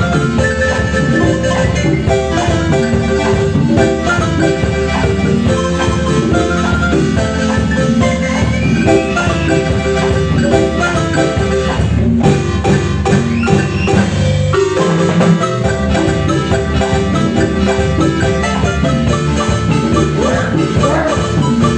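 Marimba ensemble playing dance music: quick repeated mallet notes over a low bass line.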